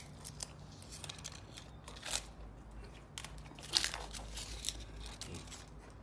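African grey parrot biting and tearing a dry leaf with its beak: irregular crisp crunches and crackles, the loudest about two seconds in and again near four seconds.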